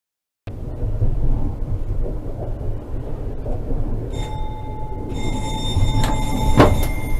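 Tram running on its rails, heard from the driver's cab: a steady low rumble that starts about half a second in. About four seconds in, high steady tones join it, and a few sharp knocks come near the end.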